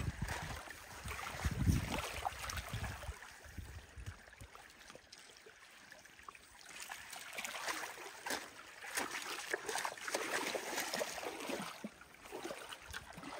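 Faint water lapping and trickling, with a low rumble in the first two seconds.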